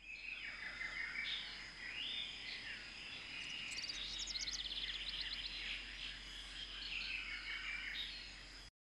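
Forest ambience of several birds calling and chirping over a steady high insect drone, with a quick run of rapid chirps about halfway through. It cuts off suddenly just before the end.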